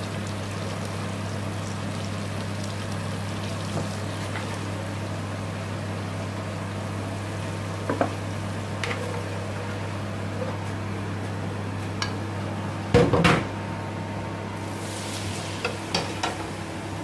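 Food sizzling steadily as it fries in a pan on a gas hob, over a steady low hum. A metal utensil clinks against the cookware a couple of times, clatters loudly for a moment about thirteen seconds in, and taps a few more times near the end.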